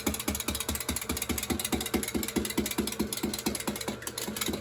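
Clockwork mechanism of a wind-up tin frog toy running: a rapid, even clicking, about six or seven clicks a second, as the spring unwinds and drives the frog's hops.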